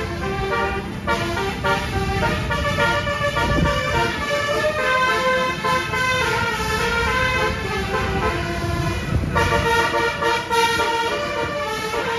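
Telolet (basuri-type) multi-tone horn of a Putera Utama Rahma bus playing a melody of held notes that change pitch every half second to a second, over the low rumble of the moving vehicles.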